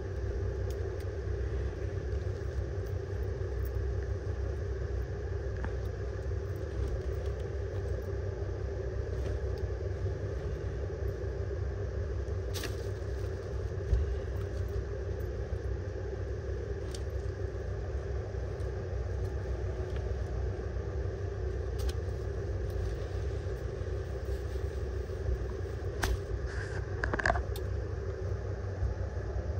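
Steady low background rumble with a constant hum, broken by a few short clicks, the loudest about 14 seconds in and a small cluster near the end.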